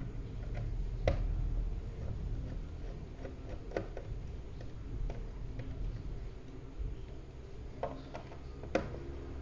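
Scattered small clicks and ticks of hand work on a laptop: a screwdriver and small screws tapping on the plastic base while the bottom case is unscrewed, with a low steady hum underneath.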